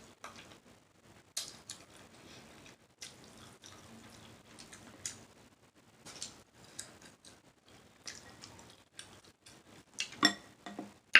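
Eating a seafood boil by hand: intermittent soft wet clicks, smacks and taps of fingers, shells and sauce, with a few sharper clicks near the end.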